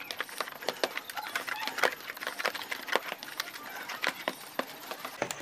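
A hand stirring and squishing a wet bait batter of crushed pellets, egg and coconut milk in a plastic bowl: irregular soft wet clicks and slaps, several a second.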